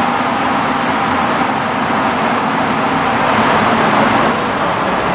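Steady, loud noise of a funicular in motion: the haul cable running over its track pulleys and sheave as the car approaches through the tunnel.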